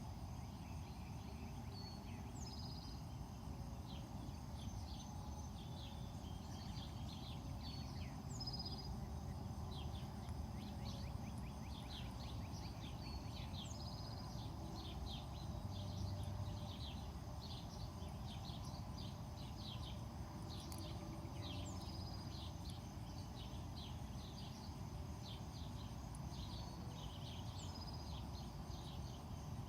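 Wild birds chirping and singing in many short, repeated calls over a steady low rumble.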